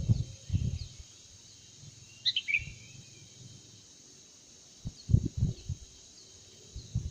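A kutilang emas (a bulbul) gives one short call of a few quick notes about two seconds in, over a steady high insect hiss. Low thumps on the microphone come near the start and again around five seconds in, and these are the loudest sounds.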